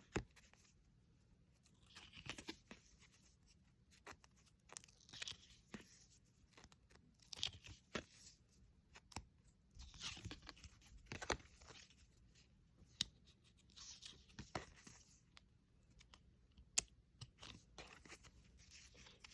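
Faint, scattered rustling and light clicks of paper photo cards and album inclusions being handled and shuffled through.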